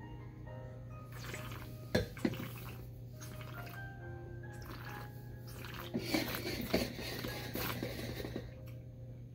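Wet mouth sounds of a sip of red wine being swished and slurped around the mouth to taste it, loudest in the second half, with two sharp knocks about two seconds in. Soft background music with short picked notes plays underneath.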